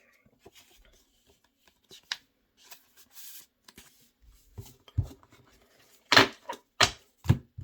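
Pokémon trading cards and their packaging being handled: faint rustles and light clicks, then a handful of sharp taps, as of cards or a tin set down on the table, in the second half.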